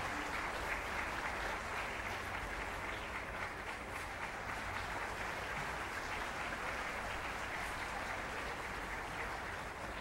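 Concert audience applauding steadily, greeting the soloists and conductor as they come on stage.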